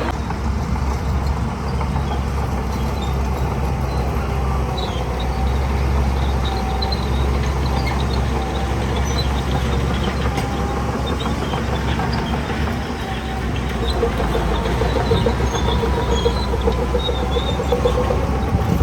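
Heavy diesel earthmoving machinery running steadily with a deep rumble, and a wavering higher tone over it that grows stronger in the second half.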